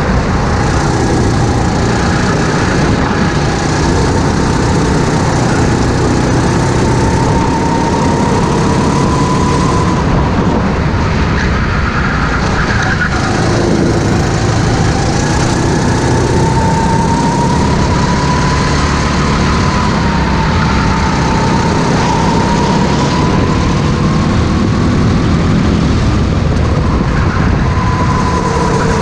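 Go-kart engine heard onboard at racing speed, its pitch rising and falling as the throttle opens on the straights and eases into the corners.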